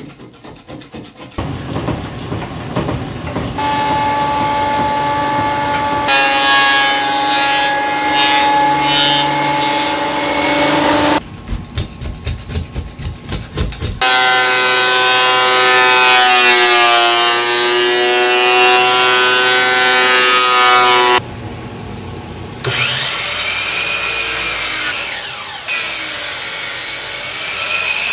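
A run of woodworking power tools cut one after another, each a steady motor whine with wood being cut. The loudest is a benchtop thickness planer feeding an end-grain board, its pitch sagging for a moment as the cut loads the motor, then recovering. Near the end a miter saw runs.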